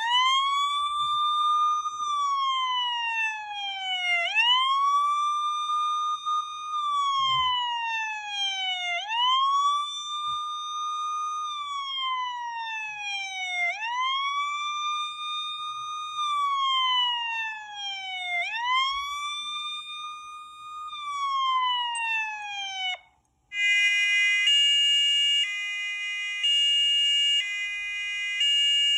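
Emergency-vehicle siren wailing: each cycle rises quickly, holds, then falls slowly, repeating about every four to five seconds. About 23 seconds in it breaks off and switches to a two-tone hi-lo siren alternating about once a second.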